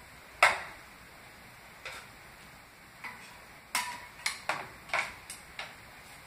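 A cleaning pole knocking and clinking against a ceiling fan's blades and light fixture as they are wiped: about nine sharp, irregular taps, the loudest about half a second in and a quick cluster in the second half, one of them ringing briefly.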